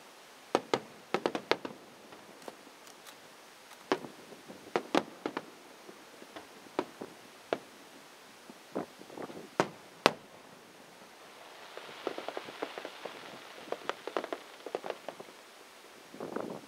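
Fireworks display: aerial shells bursting in irregular sharp bangs, the loudest about ten seconds in. From about twelve seconds a hissing crackle of many rapid small pops sets in as many bursts go off together.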